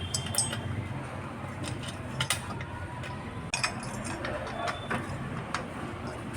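Scattered metallic clicks and clinks of a battery cable's lug and terminal hardware being handled while the negative wire is fitted to the inverter's battery.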